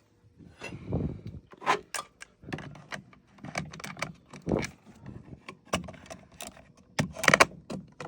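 Hands working on fire alarm panel wiring and hardware: irregular clicks, knocks and rattles as parts are handled and plugged back in, with a sharper cluster of clicks near the end.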